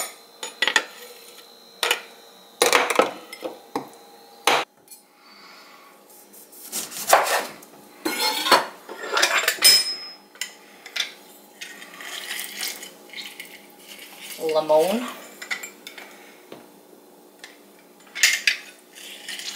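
Irregular kitchen clatter on a countertop: knocks, taps and scrapes as a plastic blender cup and a glass dish are handled, and the clacks of a hand-held lime squeezer being worked.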